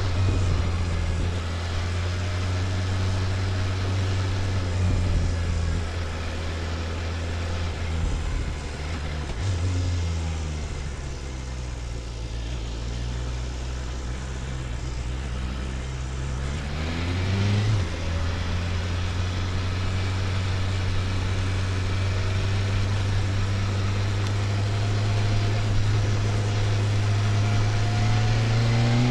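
BMW S1000RR's inline-four engine running under way at steady revs, easing off about ten seconds in, then revving up sharply near eighteen seconds and holding steady again.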